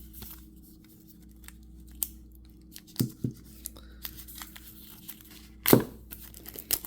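Stiff plastic toy packaging being torn and pried open by hand: scattered crackles and tearing, with a few louder sharp snaps about three seconds in and again near the end.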